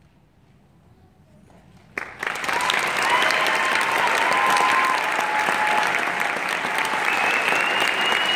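A brief hush after the choir's last note, then about two seconds in, a concert audience breaks suddenly into loud, sustained applause.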